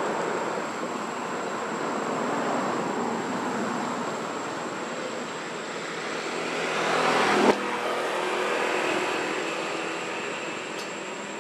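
Steady background vehicle noise that swells and then cuts off abruptly about 7.5 s in, replaced by a quieter, steadier engine hum, with a thin high-pitched whine throughout.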